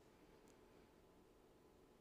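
Near silence: faint steady hiss of the recording, with a tiny click about half a second in.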